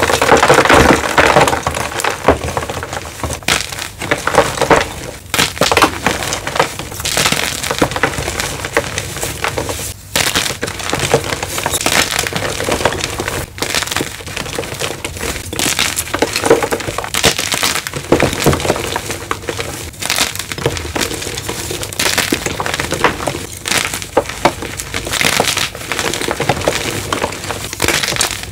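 Blocks of gym chalk being crushed, a dense run of dry, crumbly crunches one after another, broken by a couple of abrupt short gaps.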